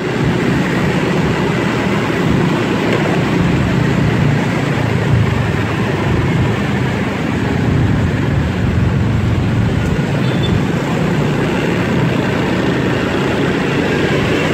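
Steady rumble of busy city traffic and road noise, heard while travelling along the street.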